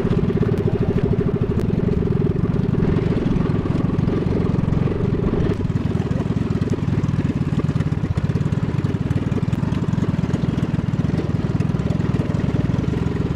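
Small engine of a motorized outrigger boat running steadily under way, a fast, even chugging. Its note shifts slightly about five and a half seconds in.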